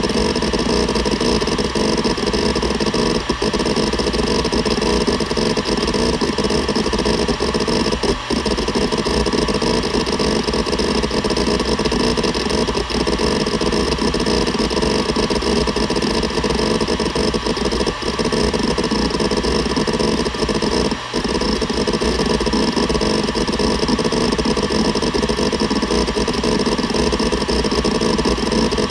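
Seagate Barracuda ES.2 ST31000340NS hard drive seeking continuously: a dense, steady chatter of head movements over the spinning platters, broken by a few very brief pauses.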